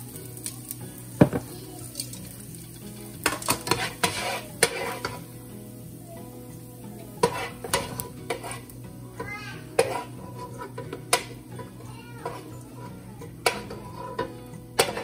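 Metal tongs, then a plastic spatula, clacking and scraping against a nonstick frying pan as sautéed onion slices are picked out, in irregular knocks and scrapes, with oil sizzling in the pan.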